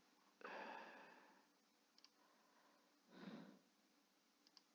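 Near silence with a few faint computer mouse clicks, one about two seconds in and a quick pair near the end, and two soft breaths from the narrator.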